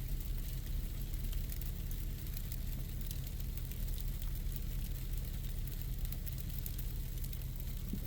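Pickup truck engine and road noise, a steady low drone, as the truck pulls a loaded trailer up a hill on a snow-covered road, with a few faint ticks.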